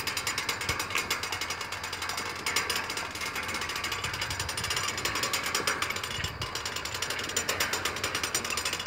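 Manual hand winch turned by workers pushing its bar around, its ratchet pawl clicking rapidly and steadily as it hoists tower steel.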